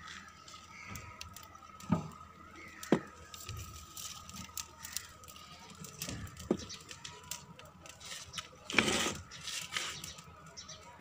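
Dry twigs handled and fed into a wood fire: a few sharp snaps and knocks about two, three and six and a half seconds in, and a short rustling burst near the end, over a faint steady high tone.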